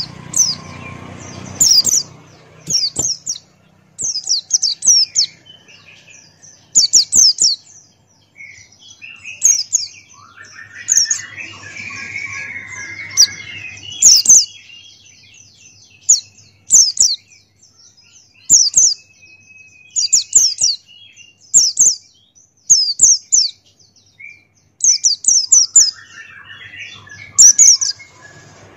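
A pleci buxtoni white-eye singing in short bursts of rapid, high chirps falling in pitch, one burst about every second or two, with a softer, lower warbling phrase near the middle.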